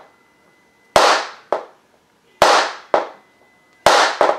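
Inertia bullet-puller hammer, with a 41 Magnum round in it, struck down hard three times about a second and a half apart. Each blow is a sharp crack with a short ringing tail, followed by a lighter knock half a second later. The bullet is heavily crimped and only creeping out of the case.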